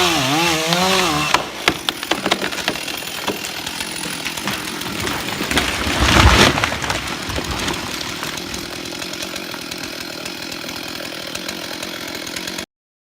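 Chainsaw running under load with a wavering pitch, stopping about a second in. Then comes irregular cracking of wood, with a heavier crash about six seconds in, and the sound cuts off suddenly near the end.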